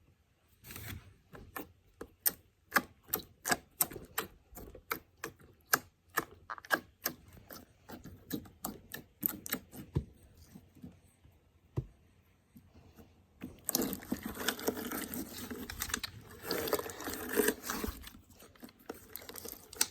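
Hands working slime: a string of sharp, irregular clicks and pops, about two a second. About two-thirds of the way in they give way to a dense, continuous crackling squish for a few seconds.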